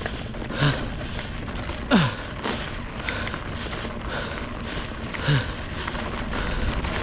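A person breathing hard, with three loud, short exhales or grunts that drop in pitch, over a steady low rumble.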